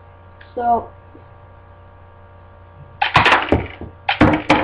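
Sharp plastic clicking and rattling in two short clusters past the middle, from a homemade Lego rubber-band gun being handled and loaded, over a steady electrical hum.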